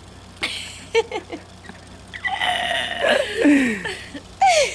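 A woman's wordless vocal sounds: short bursts, then a long sound about two seconds in that falls steadily in pitch.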